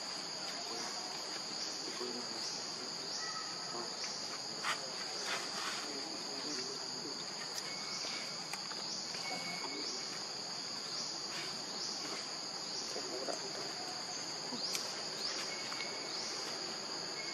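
Steady high-pitched insect chorus, with short rising chirps repeating about every half second over the continuous trill. A couple of faint clicks come about five seconds in.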